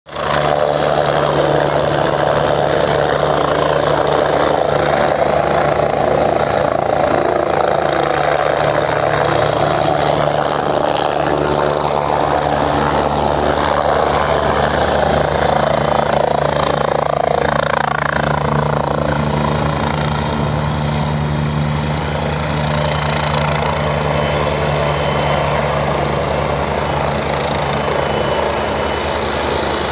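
Helicopter rotor and engine running loud and steady as it descends low and settles onto the ground, the rotor still turning after touchdown.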